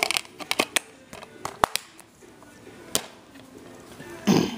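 Plastic DVD cases being handled: a quick run of sharp clicks and knocks, then single louder clicks about 1.5 s and 3 s in, and a short rustle near the end.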